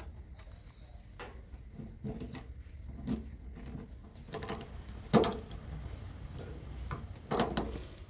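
A bunch of keys clicking and tapping against a tractor's metal fuel cap and bonnet: scattered short clicks, the loudest about five seconds in and two more near the end.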